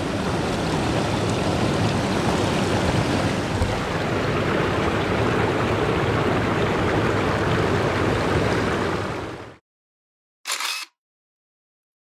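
Small mountain stream rushing over rocks, a steady even wash of water noise that cuts off suddenly about nine and a half seconds in. Then silence, broken once by a half-second burst of sound about a second later.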